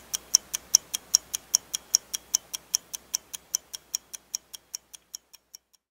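Rapid, even clock-like ticking, about five ticks a second, growing fainter and stopping shortly before the end.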